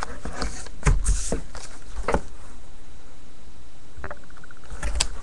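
Handling noises over a steady low hum: a few short clicks and knocks, a cluster about a second in, one at two seconds and one near the end.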